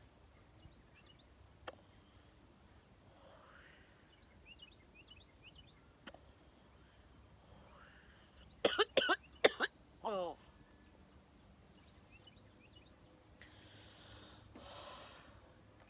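A smoker coughing hard on cigarette smoke: a quick run of about four harsh coughs a little past halfway, then a short groan falling in pitch.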